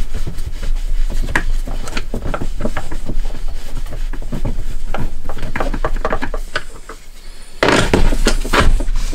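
Irregular clicks, scrapes and knocks of hands and a screwdriver working on the wooden cabinet of a Tivoli Audio Model One radio. Near the end comes a louder stretch of rubbing and knocking as the box is tipped over.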